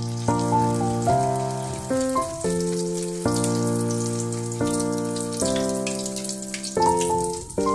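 Background piano music playing a melody of held notes, over corned beef sizzling and crackling in hot oil in a frying pan.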